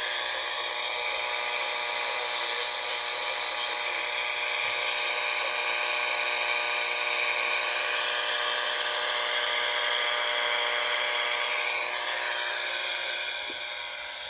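Audio from a homemade FU-25 vacuum-tube shortwave receiver: steady static hiss laced with a buzzy whine of many steady tones. It gets somewhat quieter near the end.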